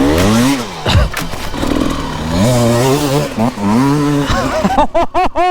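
Dirt bike engine revving: the pitch rises in the first half second, then the engine holds steady revs with a few short drops and pickups.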